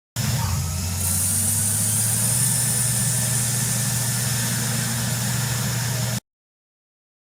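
A motor running steadily with a low hum. It cuts in abruptly just after the start and cuts off abruptly about six seconds in.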